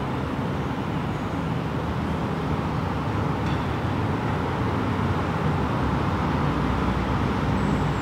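Steady low rumble of road traffic, slowly growing louder.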